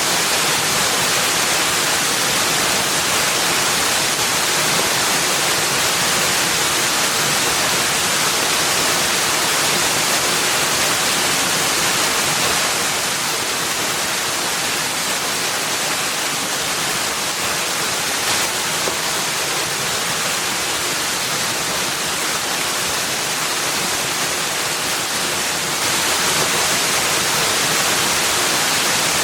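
Steady rushing water: an even, hissing rush with no separate splashes or calls, a little quieter for a stretch in the middle.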